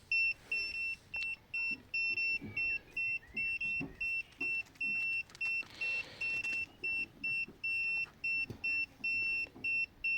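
Parkside PAMR 500 A1 robot lawn mower sounding its high electronic warning beep over and over, about two and a half short beeps a second, as it reports an error instead of mowing: the motor stall fault that its display shows. A few faint knocks are heard under the beeping.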